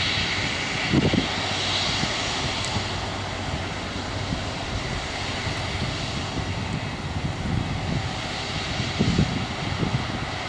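Airbus A330-200's twin jet engines running at taxi power, a steady jet hiss and whine that eases slightly after the first couple of seconds. Brief low rumbling surges come about a second in and again near the end.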